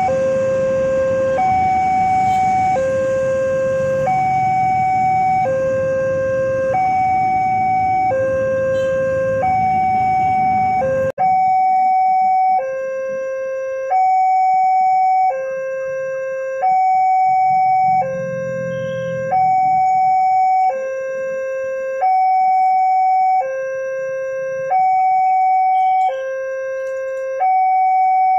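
Indonesian level-crossing warning alarm sounding from the loudspeaker on the crossing signal: an electronic two-tone alarm, a low tone and a higher tone taking turns, each held about a second and a half. A low traffic hum lies underneath until a brief break about eleven seconds in, after which the alarm sounds on its own.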